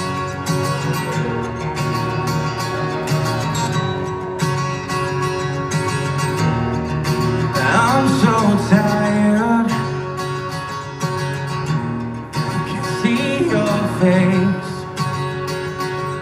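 Solo acoustic guitar strumming chords, played live through a concert PA. A wavering voice rises over the guitar twice, about eight and thirteen seconds in.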